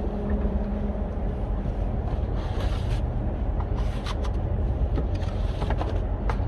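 Steady low engine and road rumble of a vehicle on the move, heard from inside the cab, with a few light clicks or rattles about four seconds in and again near the end.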